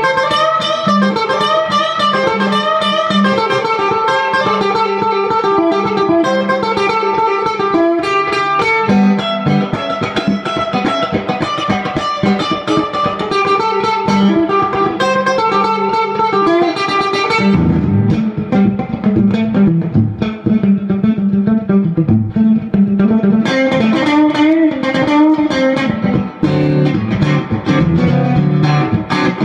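Electric guitar played loud through a clone of a 1964 Fender Vibroverb tube amp, a busy run of single-note lines. About 17 seconds in, the playing moves to lower, bass-heavy notes with much less treble.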